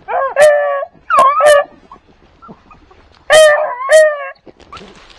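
A pack of beagles baying in three bouts of long bawls, the middle one short, with a pause of over a second before the last: hounds giving tongue as they work a rabbit's scent trail. Faint rustling through grass follows near the end.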